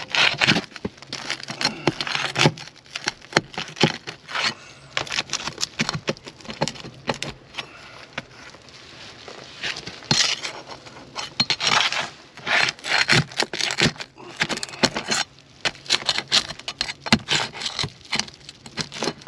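Asphalt roof shingles being worked loose from their seal: repeated scraping and crackling with many sharp clicks, in uneven bursts.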